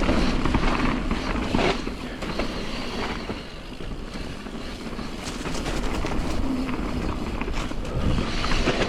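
Nukeproof Giga full-suspension mountain bike riding down a dirt trail: a steady rumble of tyres on dirt and wind on the microphone, broken by frequent short clicks and rattles from the chain and frame over bumps.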